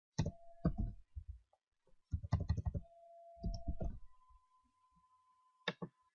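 Computer keyboard and mouse clicking: a few quick runs of key presses, then two sharp mouse clicks near the end. A faint steady tone hums underneath and steps up in pitch about four seconds in.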